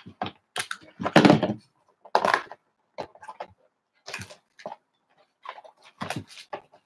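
A Panini Prizm basketball blaster box being handled and opened by hand: a series of short cardboard scrapes, taps and flap sounds with some cellophane rustling, spaced out with brief pauses.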